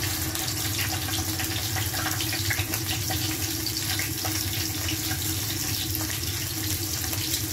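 Pieces of grouper head frying in oil in a nonstick pan: a steady sizzle with small crackles.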